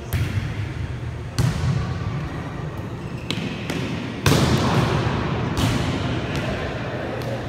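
A volleyball being struck and hitting the floor during a rally: a series of about six sharp slaps, the loudest about four seconds in, each ringing on in the gymnasium's echo.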